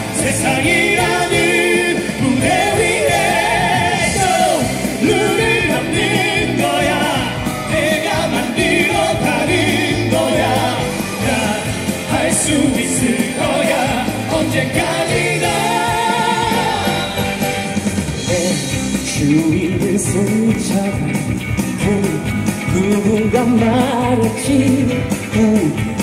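Male vocal group singing a pop song into handheld microphones over backing music with a steady beat.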